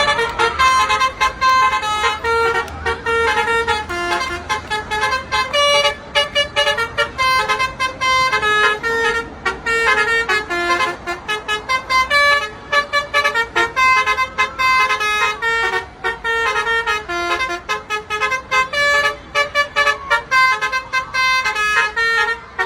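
Indonesian bus 'telolet' musical horns playing quick melodic runs of short notes, one after another without pause, over a low traffic rumble.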